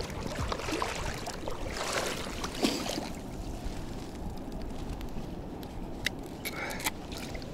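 Shallow river water splashing and sloshing around a fish held at the surface with a lip grip, with louder splashes in the first few seconds, then quieter lapping and a few sharp clicks near the end.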